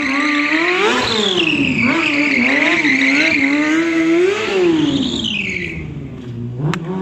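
Sport motorcycle engine revving up and down over and over as the rider circles hard, with a high, sustained tyre squeal on the paving over it. About five seconds in, the revs fall away and the sound dies down.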